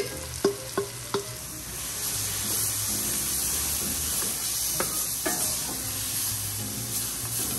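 Mushroom duxelles sizzling in a skillet as a wooden spoon stirs it, with a few sharp taps and scrapes of the spoon in the first second or so.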